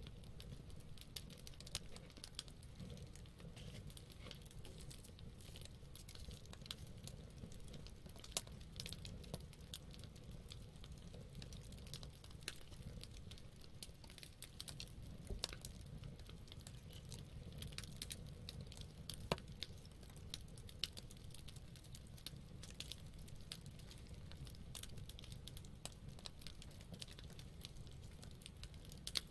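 Wood fire burning: irregular small pops and crackles over a low, steady rumble of the flames, with a few sharper snaps.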